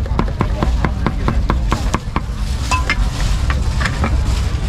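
Meat cleaver chopping braised pig head on a round wooden chopping block: quick, steady strokes, about four a second.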